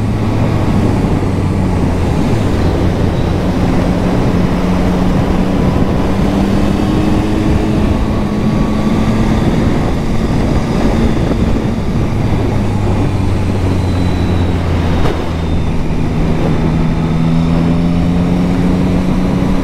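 Yamaha MT-09 SP's three-cylinder engine pulling in sixth gear from low revs, its note climbing slowly, dipping about halfway through and climbing again, under heavy wind rush on the microphone.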